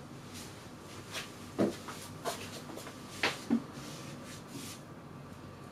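A few light knocks and taps at irregular intervals, from a card and brush being handled on a tabletop, over faint steady room noise.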